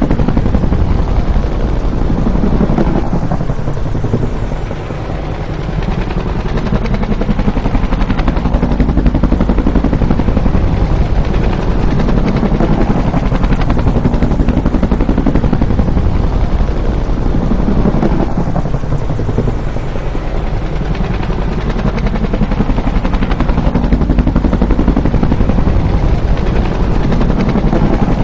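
Bell UH-1 'Huey' helicopter, its rotor beating rapidly and its engine running loud and steady. Twice, about fifteen seconds apart, the sound sweeps down and back up in pitch as it passes, with a brief drop in loudness the first time.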